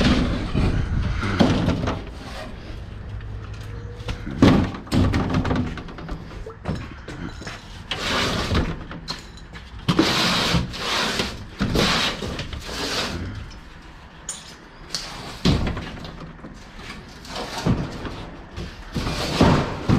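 Scrap metal being handled: irregular knocks, bangs and scraping clatter as metal pieces are moved and dragged.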